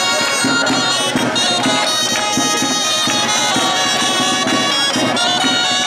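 Reed wind instruments playing a traditional folk dance tune, steady and unbroken.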